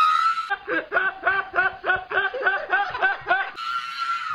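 A person laughing in rapid, even pulses of about four a second, between a high held squeal at the start and another near the end.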